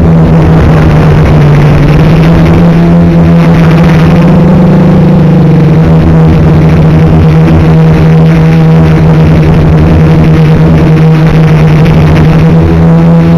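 Homebuilt MultiWii multirotor's electric motors and propellers humming loudly, heard from the onboard camera. The pitch dips and wavers briefly as the throttle changes, then holds steady.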